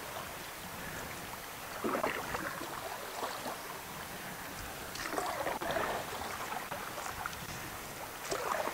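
Canoe paddle strokes in the water: three swishing splashes about three seconds apart, over a soft background of moving water.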